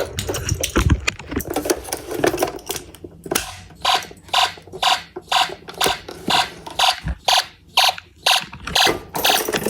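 Snap Circuits fire alarm horn sounding, a buzzy tone pulsing on and off about twice a second, starting about three seconds in. Before it come some clicks and rattles of handling at the pull station.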